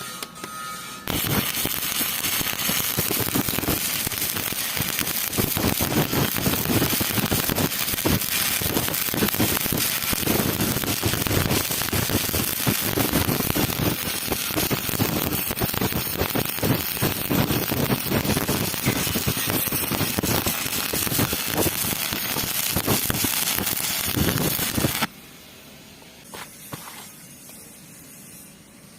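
Electric arc welding: the welding arc crackling steadily. It starts about a second in and cuts off suddenly about four seconds before the end, as the arc is broken.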